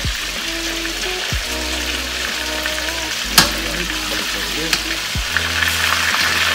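Deer steaks sizzling in hot oil in a stainless steel wok, turned and stirred with metal tongs, with a sharp click about halfway through.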